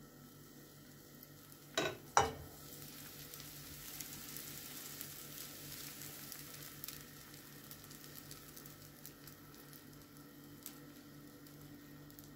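Oat pancake batter sizzling steadily in an oiled frying pan, with two sharp knocks about two seconds in.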